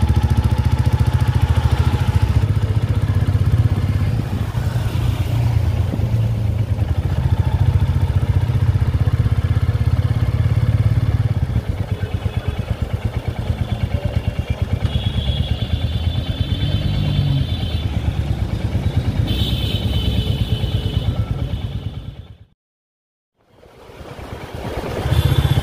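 Motorcycle engine running steadily while riding through traffic, easing off about halfway through. Higher tones come and go twice in the second half, and the sound cuts out briefly near the end.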